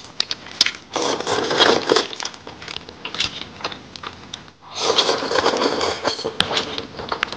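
Two long slurps of rice noodles, about a second and two seconds long, with small clicks of chopsticks and bowl between them.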